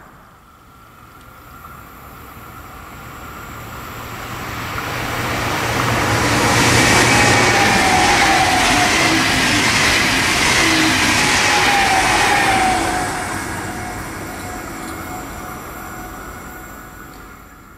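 SBB double-deck electric passenger train passing at speed: the rush of wheels on rails builds up, stays loud for several seconds as the coaches go by, then fades away. A whine drops in pitch as the train passes.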